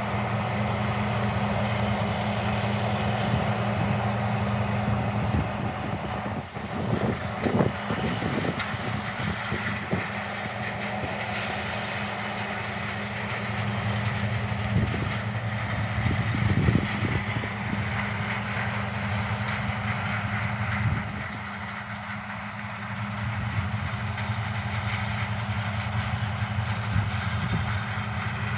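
A vehicle engine running steadily with a low hum and a steady noise over it, with a few knocks and bumps scattered through.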